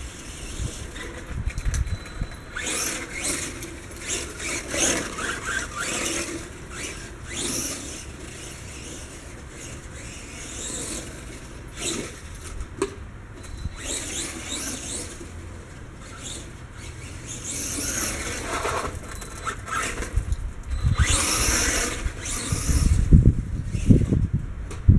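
Electric RC monster truck (Redcat Blackout XTE Pro) driving in repeated bursts, its motor whining and its tyres hissing through the grass. A heavier low rumble comes in over the last few seconds.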